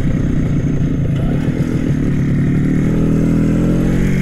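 Small two-stroke motorcycle engine running under way, heard from on board the bike. Its pitch rises near the end as the bike picks up speed after the level crossing.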